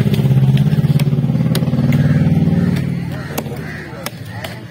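A vehicle engine running close by, loudest for the first three seconds and then fading away. Over it, a few sharp knocks of a cleaver chopping fish on a wooden block.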